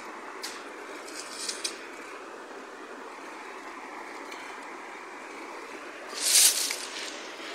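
Small rocky river running steadily, with a few light splashes of a hand in the shallow water near the start and one louder, brief splash about six seconds in.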